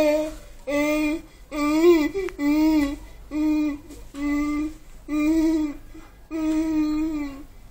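A baby's voice making a string of short sung vowel notes into a plastic cup held over its mouth, about one a second. Most notes hold one pitch; one wavers up and down.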